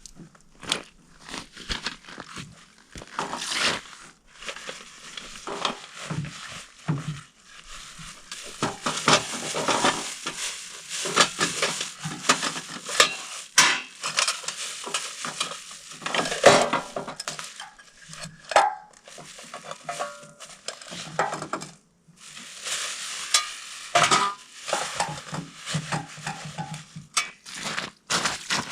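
Camp cooking preparation: irregular scraping, clinks and rustles of a small metal pot and utensils being handled.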